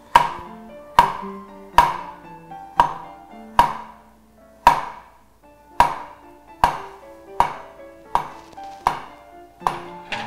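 A chef's knife slicing thin through an avocado and tapping a wooden cutting board about once a second, at a slightly uneven hand pace, with background music underneath.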